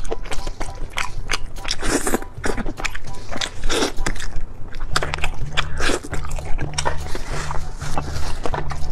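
Close-miked eating of clay-oven roast chicken: a steady run of wet bites, chewing and short mouth clicks and smacks.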